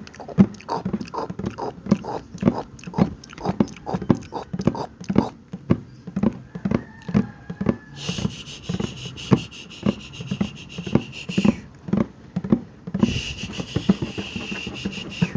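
ASMR mouth sounds made into a bucket: a quick, steady run of wet pops and clicks, about three to four a second. Twice the pops are joined by a hiss lasting a few seconds, the first from about halfway in.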